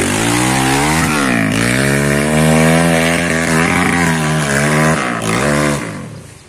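Off-road dirt bike engine revving hard under load on a steep climb, its pitch rising and dropping several times with the throttle and gear changes, then fading away near the end.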